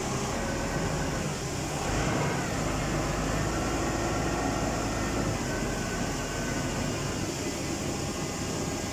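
Isuzu 6BG1 inline-six diesel engine of a forklift running steadily, with a slight rise in level about two seconds in. It runs on without stalling, its fuel leak just repaired.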